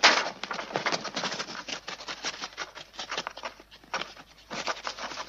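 A knife slitting and tearing through wallpaper pasted over a column: rapid scratchy ripping and crackling of paper, with a brief pause about four seconds in before it resumes.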